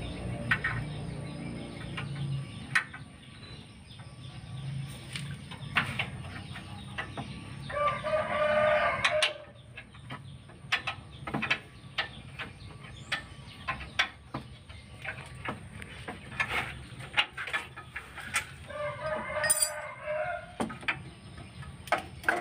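A rooster crows twice, about eight seconds in and again about nineteen seconds in, each crow lasting a second or so. Scattered sharp metallic clicks and clinks of hand tools on the car's underside sound throughout.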